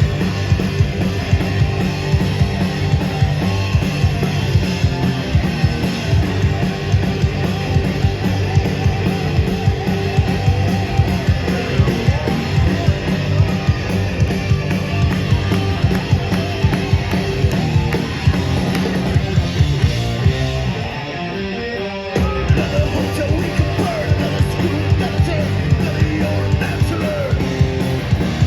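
Live hard rock band playing at full volume: distorted electric guitars, bass and driving drums. About twenty seconds in the bass and drums drop back briefly, and the full band comes back in about two seconds later.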